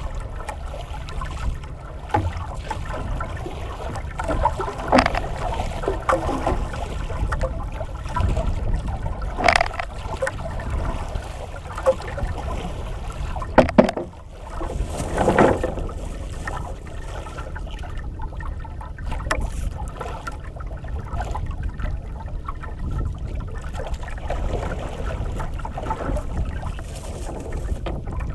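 Wind buffeting the microphone over water lapping and sloshing against the hull of a small boat at sea, with a few louder splashes and a sharp double knock about halfway through.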